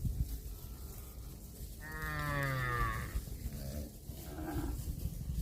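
Cow mooing: one long moo about two seconds in that slides down in pitch, then a shorter, fainter call about a second later, over a steady low rumble.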